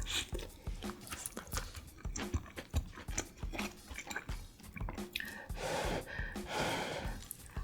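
Close-miked chewing and mouth sounds of a person eating, with irregular wet smacks and small crunches.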